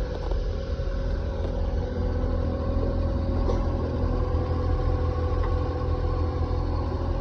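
A large engine running steadily at idle: a continuous low rumble with a steady hum over it.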